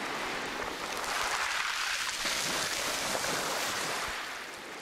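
Ocean surf washing onto a sandy beach, a steady rush of water that swells about a second in and eases off near the end.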